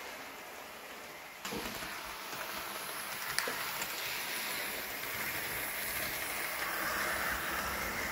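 Hornby OO gauge A4 model locomotive running on its track: a steady whirring rush of the motor and wheels on the rails. It gets suddenly louder about a second and a half in and keeps building slowly, with a single sharp click a couple of seconds later.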